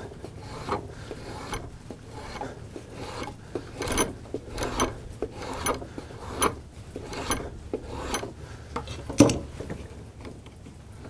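A hand-forged draw knife is drawn along a stick of wood held in a vise, shaving it down in about a dozen steady scraping strokes, roughly one a second. A sharper, louder stroke comes near the end, then the shaving stops.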